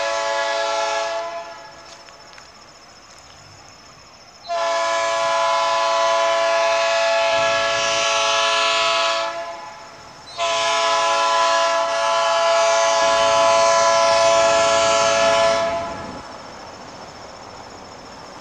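Air horn of an approaching pair of G22U diesel locomotives, sounding a steady multi-note chord in three blasts: the end of one blast about a second in, then two long blasts of about five seconds each with a short gap between.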